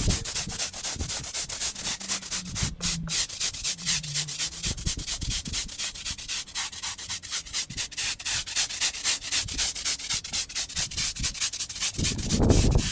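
Kiln-dried sand being brushed into the joints of a block-paved brick driveway, in quick, rhythmic scraping strokes that get louder for a moment near the end.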